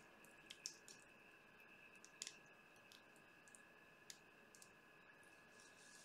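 Near silence: room tone with a faint steady high whine and a few scattered faint clicks and ticks, from handling a wet, tilted acrylic-pour canvas with paint dripping onto plastic sheeting.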